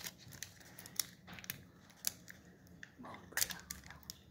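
Foil wrapper of a Pokémon Evolving Skies booster pack crinkling and tearing open in the hands, as scattered sharp crackles with the loudest about three seconds in.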